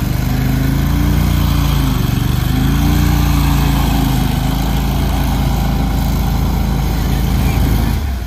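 Argo 8x8 amphibious ATV's engine running hard as it pushes through river water, its pitch swelling up and down twice, over the splashing and churning of water thrown up by its tires.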